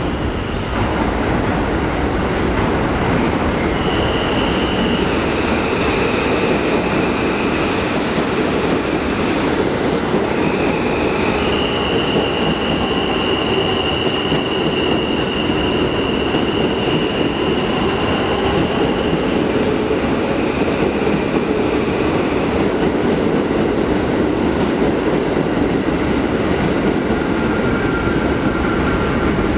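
R160 subway train running past on the far track, a loud steady rumble of steel wheels on rail. High-pitched wheel squeal comes in about 4 seconds in and rings on until about 20 seconds, with a short high hiss about 8 seconds in.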